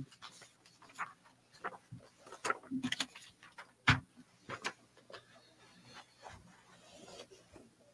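Scattered faint knocks and clicks, about one or two a second, with light rustling: handling noise at a podium microphone between speakers.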